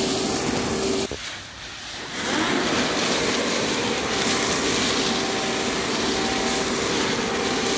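Battery-powered leaf blower running at a steady high whine with a rush of air. It cuts out about a second in and spins back up about two seconds in, then runs steadily.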